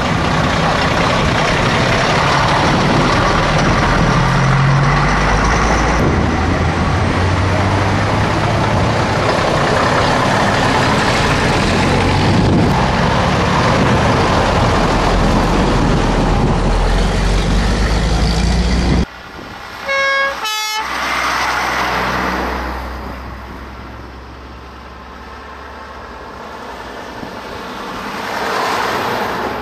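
Vintage trucks' diesel engines running loudly as they pull away one after another. About two-thirds through the sound drops abruptly, a short horn toot sounds, and an old truck's engine grows louder as it approaches along the road near the end.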